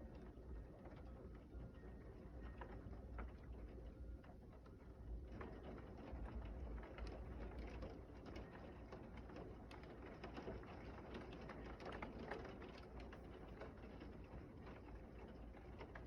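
Heavy rain pattering as a dense spatter of small drop ticks, growing thicker about five seconds in, over a steady low rumble.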